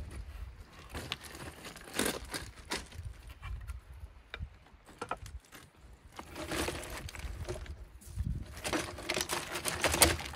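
Handling noises on a shingle beach: pebbles crunching and clattering and wood knocking as a driftwood log and a wooden board are moved, in irregular bursts that are busiest near the end.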